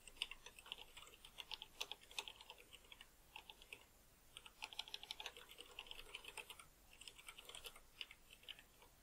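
Faint computer keyboard typing: quick runs of keystroke clicks, broken by a few short pauses.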